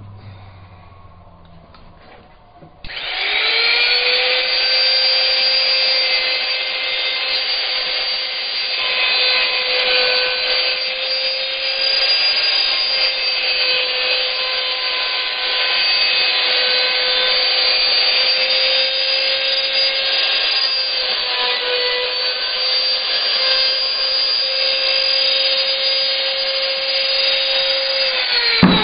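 Electric power tool for wood shaping, likely a sander, switched on about three seconds in with a rising whine. It runs steadily with slight dips in pitch now and then, and is switched off near the end, its whine falling as it winds down.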